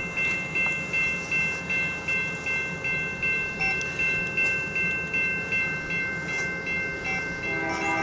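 Railroad grade-crossing bell ringing steadily, about two and a half dings a second. About seven and a half seconds in, the approaching locomotive's horn starts sounding a chord under it.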